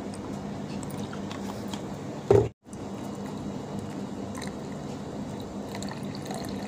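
Liquid poured from a steel jug into drinking glasses over watermelon pieces, with faint splashes and ticks over a steady low hum. A single loud thump comes a little over two seconds in, followed by a momentary dropout.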